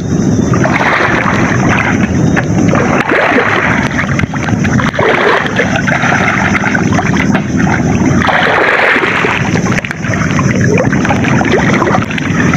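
Muddy floodwater sloshing and splashing around people wading chest-deep, in surges every couple of seconds over a steady low rumble.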